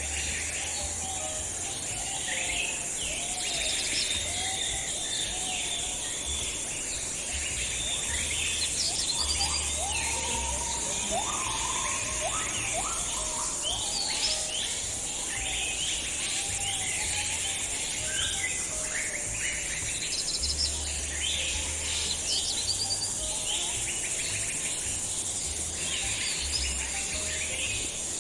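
Many birds chirping and calling over one another, with a steady high insect buzz underneath.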